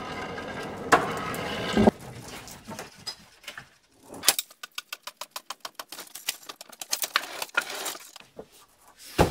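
Hand pallet truck pulled with a loaded pallet: a rolling rumble from the wheels that stops with a thump about two seconds in, then a long run of quick, evenly spaced clicks and rattles as it rolls on, and a thud near the end.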